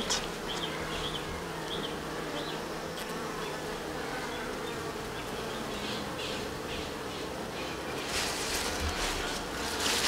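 Honeybee colony buzzing in an open brood chamber: a steady, even hum of many bees. The beekeeper judges the colony healthy at first glance.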